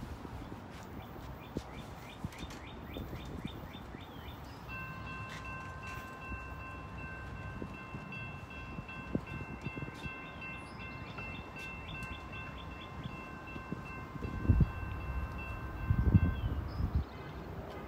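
A single steady, high warning tone held without a break for about twelve seconds, starting about five seconds in, over faint rapid ticking, as a train approaches from a distance. A few loud low thumps come near the end.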